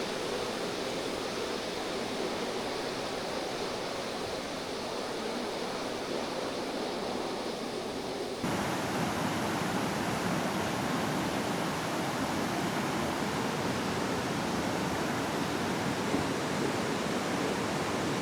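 Mountain stream water rushing over rocks, a steady full rush that jumps abruptly louder about eight seconds in.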